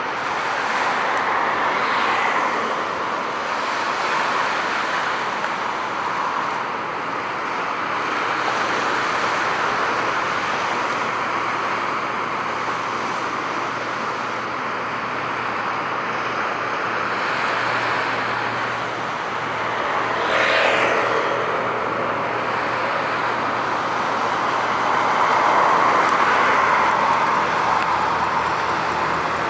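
Steady road traffic: vehicles passing one after another in swells every few seconds, with one louder vehicle going by about two-thirds of the way through.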